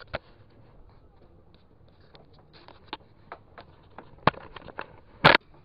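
Scattered light clicks and knocks of handling. A sharper knock comes a little past four seconds in and a louder short clatter about five seconds in.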